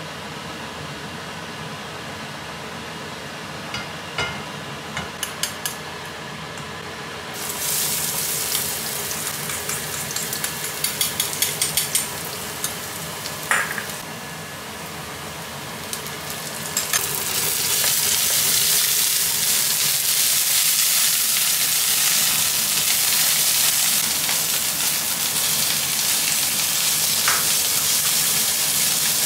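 Oil in a nonstick frying pan on a gas burner: a few clicks about four to six seconds in, then chopped garlic goes into the hot oil about seven seconds in and sizzles with sharp crackles. About seventeen seconds in, minced pork goes in and a louder, steady sizzle follows while it is stir-fried with a wooden spatula.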